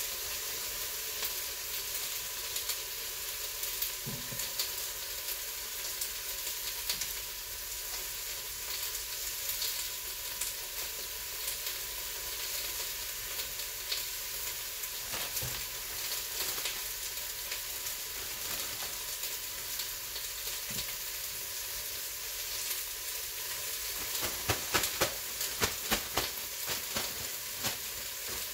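Steady hiss of steam from an Instant Pot electric pressure cooker. Near the end comes a run of sharp crinkles and clicks from a plastic vegetable bag being handled.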